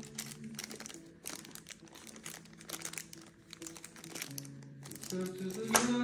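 Thin clear plastic packaging crinkling and rustling in quick bursts as small bagged parts of a watch-band kit are handled, over background music with long held notes.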